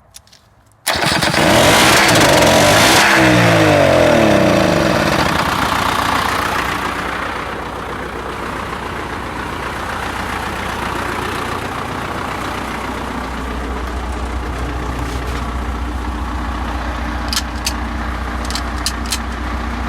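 YuMZ-6 tractor's four-cylinder diesel engine starting about a second in, running loud with its pitch sweeping for several seconds, then settling into a steady idle.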